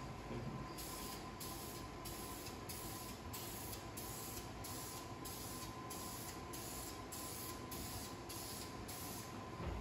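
Aerosol spray paint can hissing as a coat of paint is sprayed onto a spoiler wing, the hiss coming in short, even spurts, nearly two a second.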